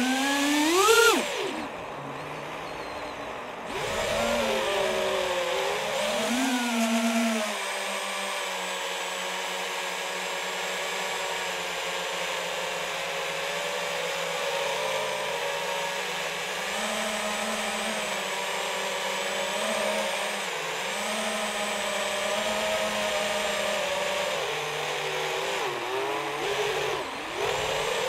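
FPV quadcopter's brushless motors and propellers, recorded on board: a whine that jumps sharply in pitch with a punch of throttle at the start, drops low briefly, swells twice, then holds a steady cruise with small rises and falls. Near the end it dips and climbs again as the quad comes down low.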